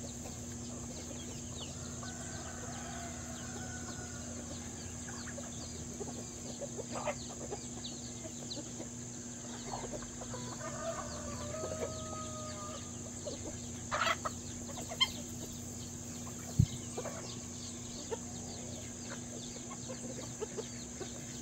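A flock of chickens clucking while pecking at scattered feed, with a few short hen calls and many small pecking ticks throughout, and some sharper knocks around the middle. A steady high hiss runs underneath.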